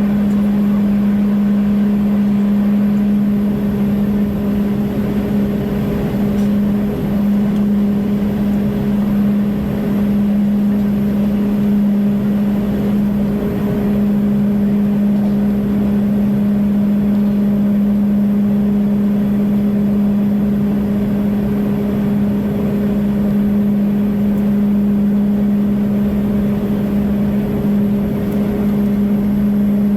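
Airliner cabin noise in flight: a steady low engine drone over an even rush of airflow, unchanging throughout.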